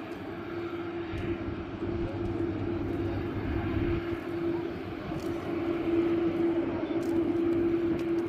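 Boeing 787 jet engines running as the airliner taxis, a steady engine noise with a constant humming tone and a low rumble that swells from about one to four seconds in.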